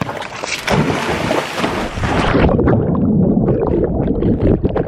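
Pool water churning and bubbling around a camera dipped under the surface as dogs swim and splash past it. For the first couple of seconds there is bright splashing, then it turns to a duller, muffled underwater rumble.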